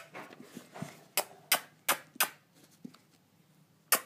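Sharp clicking taps of hard plastic toys being knocked and handled: four clear taps in a row about a third of a second apart in the middle, with fainter knocks around them and one more near the end.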